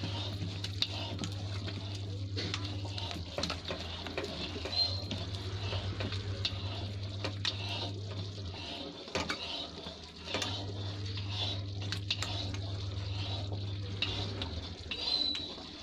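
Thick gram-flour batter being beaten by hand in a stainless steel bowl, with many short wet clicks and taps against the metal. A steady low hum runs underneath and cuts out twice.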